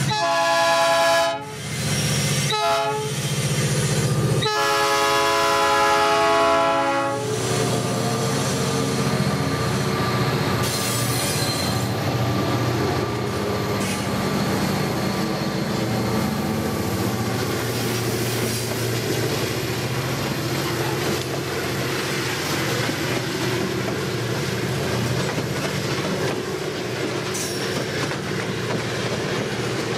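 Diesel freight locomotive sounding its horn in several blasts, two short ones and then a long one of about three seconds. The locomotives' diesel engines then rumble past close by, followed by a long string of hopper wagons rolling by with the clickety-clack of wheels over rail joints.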